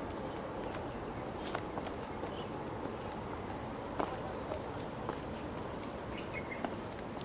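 A hiker's footsteps on stone trail steps: a few irregular taps roughly a second apart over a steady outdoor hiss, with insects chirping faintly.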